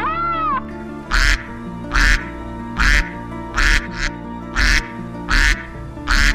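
A mallard duck quacking over steady background music: seven loud, short quacks a little under a second apart, beginning about a second in. The tail of a cat's meow is heard at the very start.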